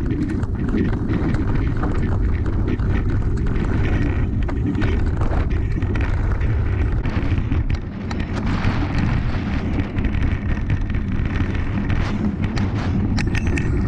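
Wind buffeting the microphone of a handlebar-mounted camera, over the rumble of a mountain bike's tyres on rough grass and dirt trail at speed. Frequent sharp clicks and rattles come from the bike, thickest near the end.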